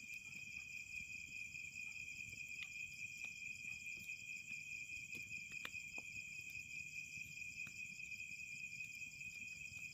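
A steady high-pitched chorus of night insects such as crickets, trilling without a break. A few faint crackles come from a small wood fire.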